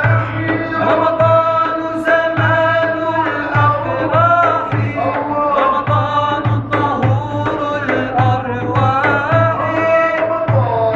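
A group of men singing an Islamic devotional chant (ibtihal) with long, bending melodic lines, accompanied by a hand-held frame drum struck in low beats about twice a second.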